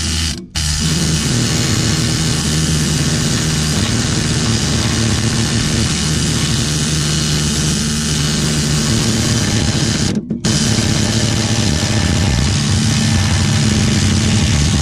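Engine running steadily and loudly, with two brief sudden breaks, one about half a second in and one near the ten-second mark.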